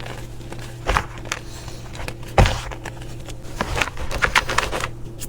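Pink reformed chalk being crushed, crunching and crumbling in irregular crackles, with single snaps about one and two and a half seconds in and a dense run of crunches near the end.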